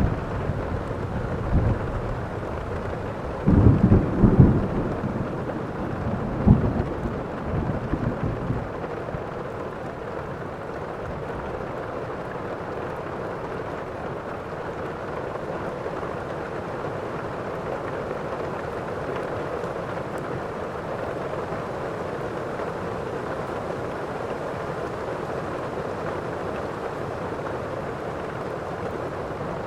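Thunderstorm: a roll of thunder with loud rumbling cracks in the first few seconds, peaking about four seconds in and again near six, fading out by about nine seconds, over steady heavy rain that carries on alone.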